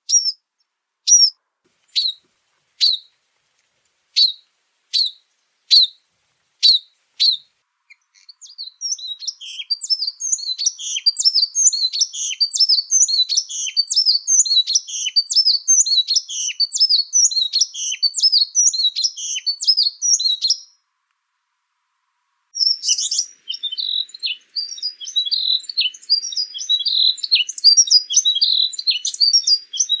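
Timberline wren calling and singing: a string of single sharp high notes, a little more than one a second, then a long burst of fast, high, jumbled song. After a short pause a second burst of song follows.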